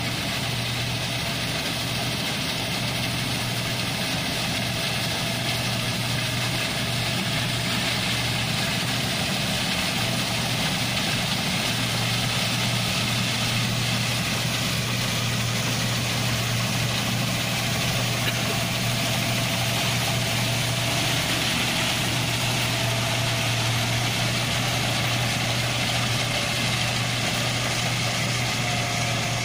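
New Holland combine harvester running at steady speed as it cuts and threshes rice: a constant low engine hum with an even wash of machinery noise over it.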